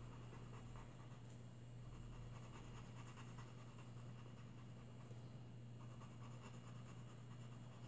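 Faint scratching of a Maped fluorescent orange coloured pencil shading on colouring-book paper, over a steady low hum.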